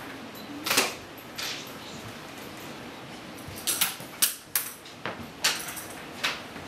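Pupils handling things at their desks in a quiet classroom: scattered short clicks, taps and rustles, with a quick cluster of them in the middle.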